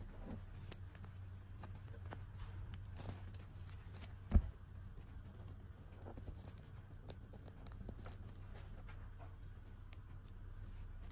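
Hands handling a plastic fashion doll and its fabric dress: soft rustling and small scratchy clicks over a steady low hum, with one sharp knock about four seconds in.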